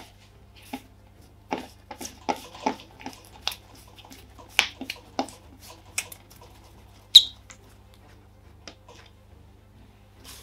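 Hands pressing and patting baguette dough against a countertop while shaping it: an irregular string of soft, dull slaps and taps. About seven seconds in comes one brief high-pitched squeak, the loudest sound.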